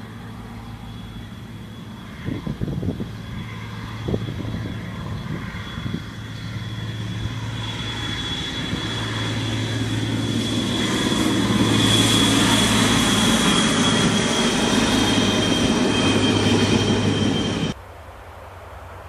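HŽ series 7121 diesel multiple unit approaching and passing: its diesel engine runs with a steady hum and a high steady whine while the running noise grows louder to a peak about twelve seconds in. A few short knocks come two to four seconds in, and the train sound cuts off suddenly near the end, leaving quiet outdoor background.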